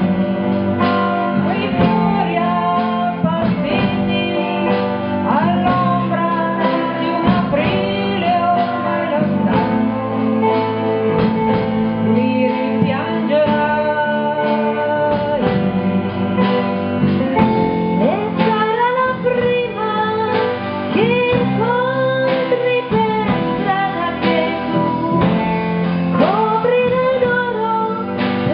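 Live band playing a song: women singing together over guitars and bass guitar.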